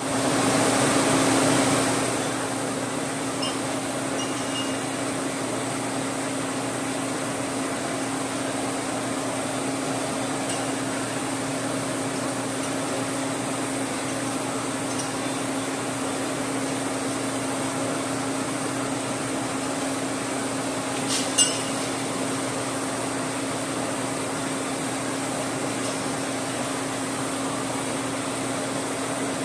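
Steady mechanical hum of running shop machinery, with one short metallic clink about two-thirds of the way through.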